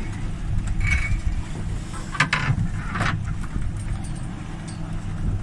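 Fishing boat's engine running with a steady low drone, with a few short clicks and rattles from tackle being handled about one, two and three seconds in.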